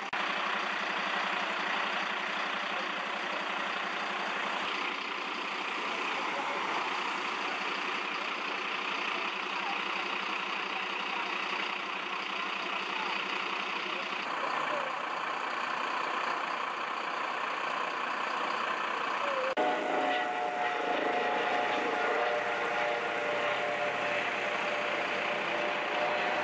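Diesel engines of parked fire engines and emergency vehicles idling with a steady rumble. About twenty seconds in, this gives way to the Airbus H145 rescue helicopter's turbine and rotor, a steady whine of several tones over a rumble.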